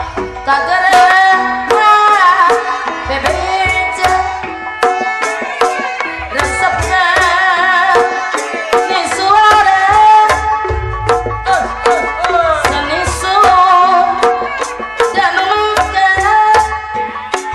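Sundanese ibing dance music: hand drums (kendang) beating a fast, busy rhythm with deep low strokes, under a bending, wavering melody line.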